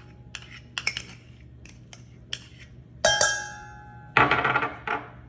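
Kitchen utensils clinking and knocking against dishes as softened butter is put into a bowl. About three seconds in comes one loud clang that rings on briefly, and a louder clatter follows near the end.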